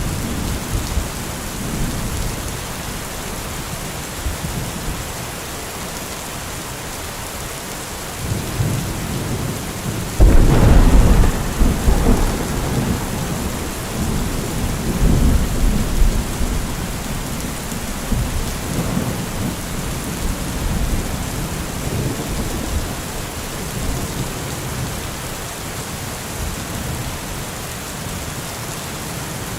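Steady rain falling through a thunderstorm, with low rolling thunder. About ten seconds in, a sudden loud thunderclap rumbles on for several seconds, followed by fainter rumbles.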